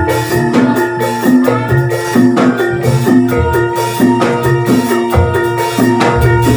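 Javanese gamelan music played through a sound system: struck metal mallet-instrument notes in a repeating pattern over a drum beat.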